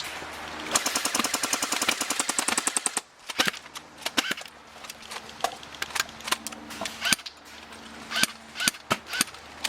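Airsoft electric rifle firing a fast full-auto burst of about two seconds, followed by scattered single sharp snaps of further shots.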